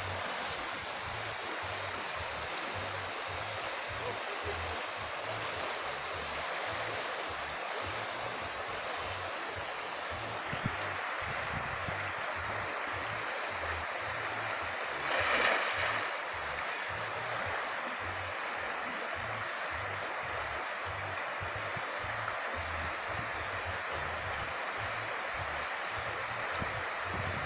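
Steady rushing of a shallow river's current, with a brief louder whoosh about halfway through.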